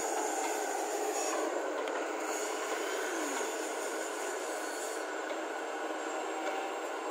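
Hyundai 220 crawler excavator's diesel engine running hard with its hydraulics as the machine digs and swings, a steady mechanical din with a short falling whine near the middle; the black exhaust puffs show the engine under load.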